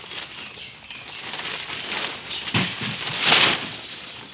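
Large woven plastic sacking being shaken out and spread, rustling and crinkling in bursts, loudest about three seconds in.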